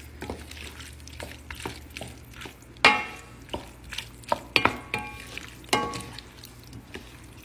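A wooden spoon stirs dressed pasta salad in a pot, with scattered knocks of the spoon against the pot. The loudest knock comes about three seconds in, and a few of the knocks ring briefly.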